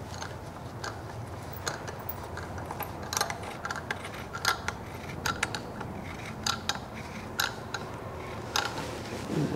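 Hand tap in a T-handle holder being turned into a drilled-out bolt hole in an aluminium engine front case, cutting new threads for a Helicoil insert: irregular small clicks and scrapes from the tap and handle, over a faint steady hum.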